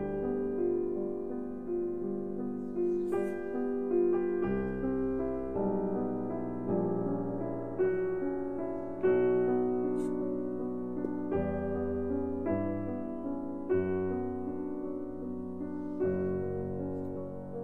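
Slow, calm piano music: chords and melody notes struck about once a second and left to ring, over changing bass notes.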